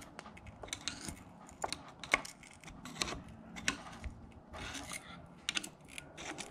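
Flathead screwdriver prying a bicycle fork's crown race off the crown, working around the steerer: irregular small metal clicks and short scrapes, metal on metal.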